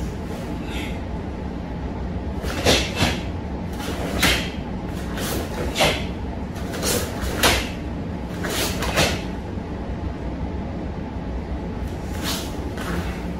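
Karate kata techniques: a string of quick, sharp swishes and snaps as punches and blocks are thrown, about half a dozen in a run, then two fainter ones near the end. A steady low room hum lies underneath.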